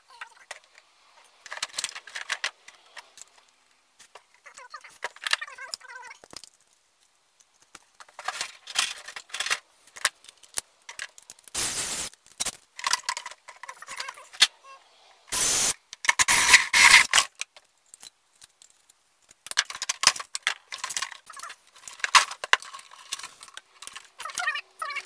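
Tools and parts clattering and clicking on a workbench in irregular bursts, with two short runs of a cordless drill near the middle.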